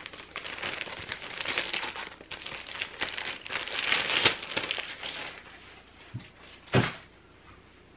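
Clear plastic bag crinkling and rustling as a plastic embroidery hoop and grid are slid back into it, loudest about four seconds in. Near the end come a light knock and then a louder one, as the bagged hoop is set down on a table.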